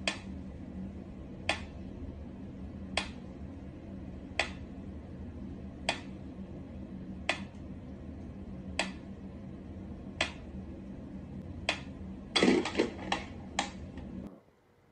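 Mechanical pyramid metronome ticking at a slow tempo, one sharp tick about every second and a half, over a steady low hum. Near the end comes a quick cluster of louder knocks and clicks.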